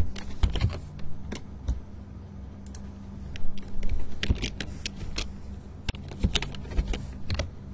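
Typing on a computer keyboard: irregular runs of keystrokes, heaviest about halfway through and again near the end, over a low steady hum.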